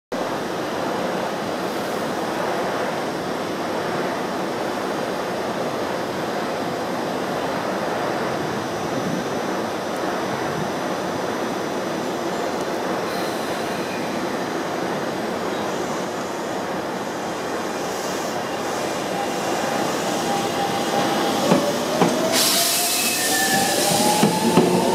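Semboku Rapid Railway 5000 series electric train waiting at the platform with a steady noise, then departing: about 20 seconds in, its traction motors start a whine that rises in pitch as it accelerates, with a sudden hiss and a few clicks from the wheels.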